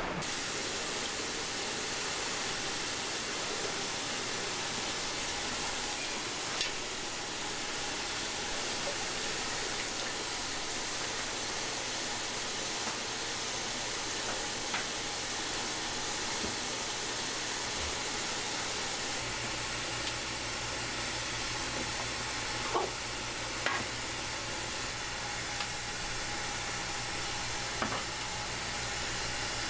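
Tteokbokki cooking on a flat iron griddle, sizzling with a steady hiss, broken by a few sharp clicks. A low steady hum comes in about two-thirds of the way through.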